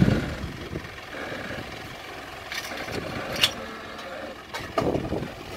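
Mitsubishi Pajero Sport engine running at low revs as the SUV crawls down a rock step. There is a loud knock at the start, and a few sharp clicks and scrapes come later as the tyres and body work over the rock.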